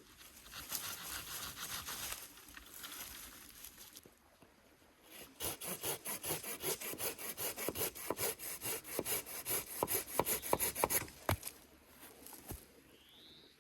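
Wood being cut with a hand saw: quick, even strokes, about four to five a second, for some six seconds, after a stretch of rustling.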